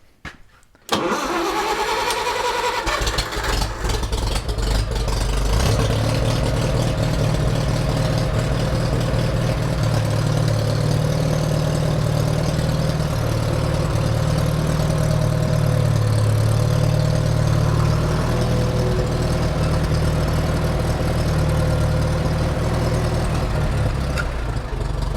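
Farmall 140 tractor's four-cylinder gasoline engine cranked and catching about a second in, then running steadily as the tractor is driven up onto ramps. It shuts off right at the end.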